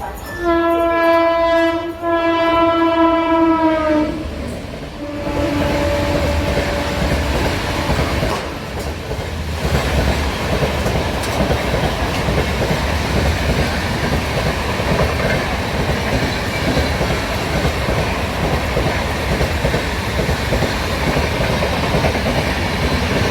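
WAP7 electric locomotive's horn sounding one long blast of about four seconds, then a shorter, fainter and lower note. After that the train's steady running rumble and rattle of wheels on rail jointed track.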